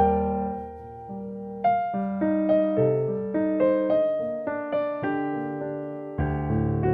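Background piano music: a slow melody of single struck notes, each fading away, over a bass line that drops out about a second in and returns near the end.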